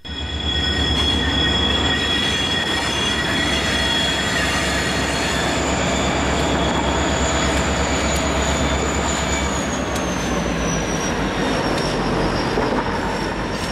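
Freight train led by diesel locomotives rolling over curved track toward a switch, with a steady low engine rumble. Several high-pitched wheel squeal tones ring over the rumble, and the highest squeal slides lower about ten seconds in.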